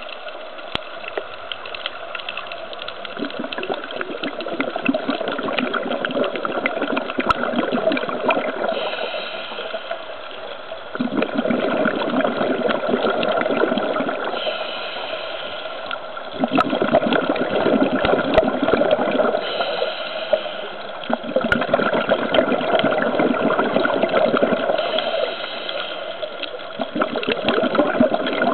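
Scuba diver breathing through a regulator underwater: exhaled bubbles rush out for a few seconds at a time, alternating with the higher hiss of each inhale, about one breath every five seconds.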